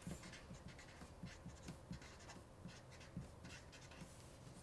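Felt-tip marker writing on paper: faint, short strokes of the tip on the sheet, a few each second.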